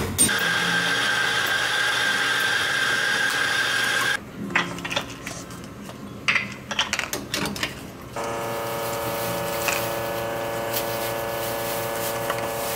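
A steady machine whir with a thin high tone stops about four seconds in. Then plastic cup lids click and snap and paper cup sleeves are fitted on iced drinks, before a steady pitched machine hum starts about eight seconds in.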